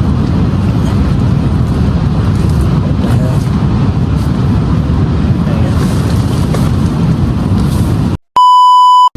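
Strong wind buffeting the microphone: a loud, steady, low rumble. About eight seconds in it cuts off abruptly, and a loud, steady electronic beep sounds for under a second.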